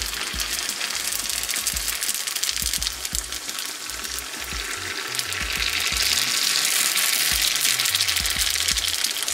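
Crab rangoon wontons deep-frying in hot oil in a skillet: a steady crackling sizzle that grows louder about six seconds in as more wontons go into the oil.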